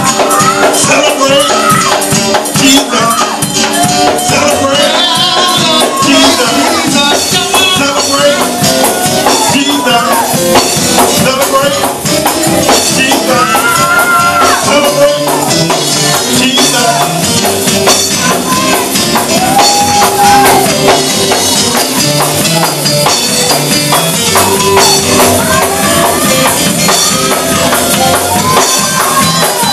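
Church praise break music: a fast, driving beat with tambourines shaking, sustained chords underneath, and voices shouting and singing over it.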